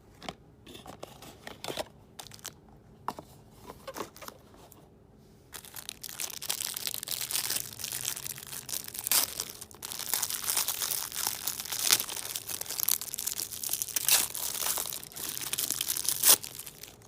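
Packaging of a mouth-guard kit being handled: a few light taps and clicks, then about five seconds in, a long stretch of steady crinkling and rustling that stops shortly before the end.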